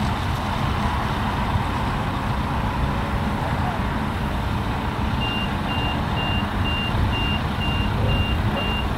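Boeing 747-8F freighter taxiing, its four GEnx jet engines giving a steady low rumble. About five seconds in, a vehicle's reversing beeper starts up, a high beep repeating about twice a second.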